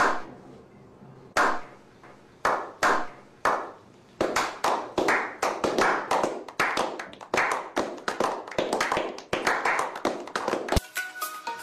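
Slow clap by a small group of men: single hand claps about a second apart, joined by more clappers from about four seconds in and growing faster and denser. Music starts near the end.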